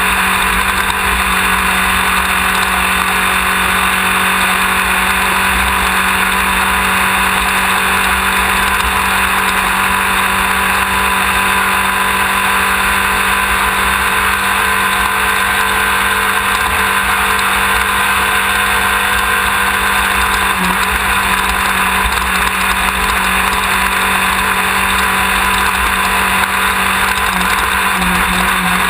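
Off-road race car's engine running hard at a steady speed, a loud, unbroken drone with a dense hiss over it.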